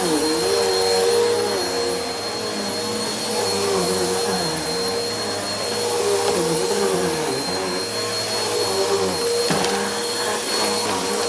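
Bissell Helix Turbo upright vacuum running on carpet as it is pushed back and forth: a steady high motor whine over rushing suction, with a lower tone that rises and falls with the strokes.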